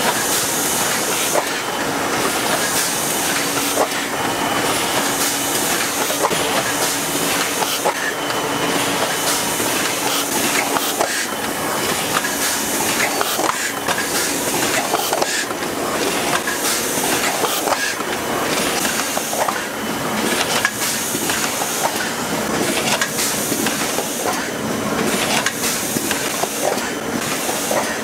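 Automatic ice cream cup-filling line running, a steady mechanical clatter with frequent sharp clicks over a constant hiss.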